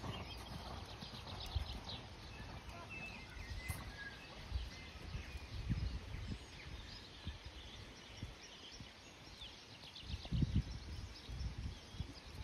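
Faint outdoor ambience with distant birds chirping now and then and scattered soft low thumps.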